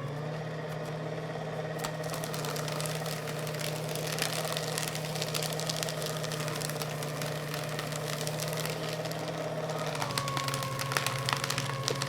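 Electric paper shredder motor running with a steady hum while its cutters chew through paper, giving a dense crackle over it. The motor's pitch shifts slightly about ten seconds in.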